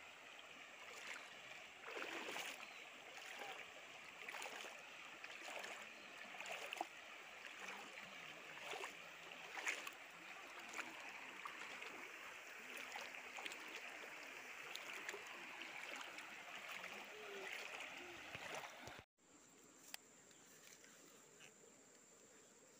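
Faint running water, like a stream or trickle, with scattered light clicks and small splashes. About 19 seconds in it cuts off abruptly to a quieter background with a steady high-pitched tone.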